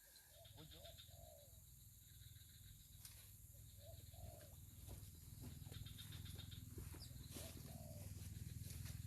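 A dove cooing faintly: a short phrase of two or three arched notes, repeated about every three seconds. Under it runs a low steady rumble, with a few light clicks.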